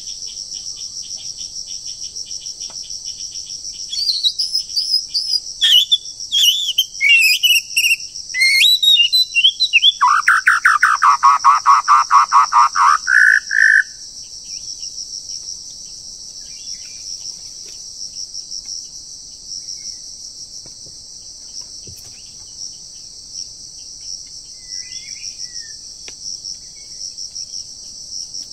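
White-rumped shama singing a burst of varied whistled phrases that ends in a loud, rapid trill dipping low and rising again, lasting about ten seconds in the first half; a steady high drone of insects runs underneath throughout.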